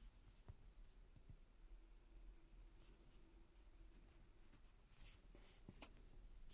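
Near silence, with a few faint small clicks and rustles of fingertips bending and squeezing a miniature stick-of-gum toy charm. The clicks come mostly around five seconds in. The toy is firm rather than slime, so it makes no squishing.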